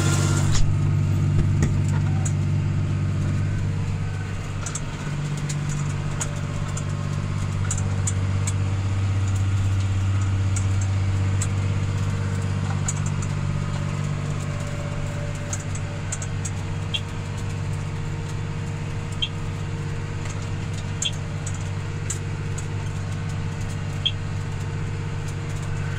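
Tractor engine running steadily under load while pulling a row cultivator, heard from inside the cab, a low even hum with a few faint ticks scattered through it.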